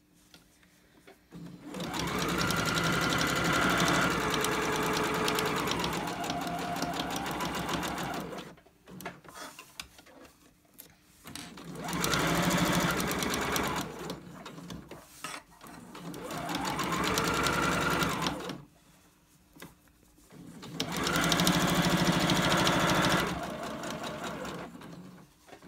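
Electric sewing machine stitching a seam through layered fabric in four runs, the longest first. Each run speeds up at the start and slows down at the end, with short pauses between.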